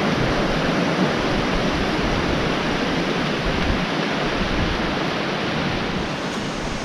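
Steady rush of flowing water, a stream or waterfall running close by, with no change in level.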